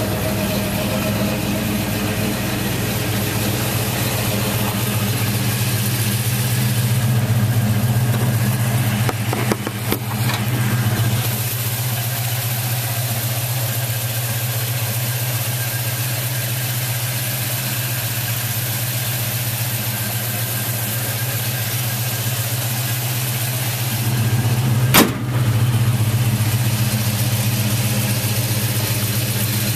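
1972 Chevrolet pickup's engine idling steadily, with one sharp knock a few seconds before the end.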